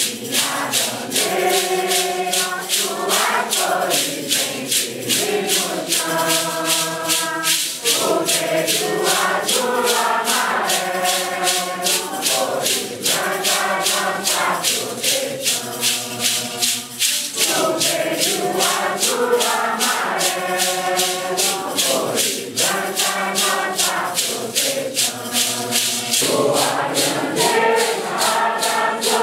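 Mixed congregation of men and women singing a Santo Daime hymn in unison, with maracas shaken on a steady beat under the singing.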